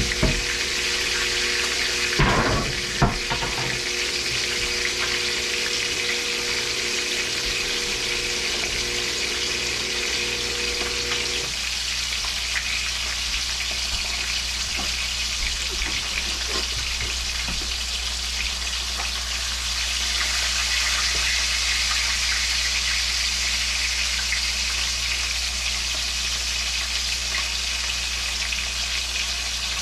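Food frying in hot oil in a pan, a steady sizzle. A few knocks come about two to three seconds in.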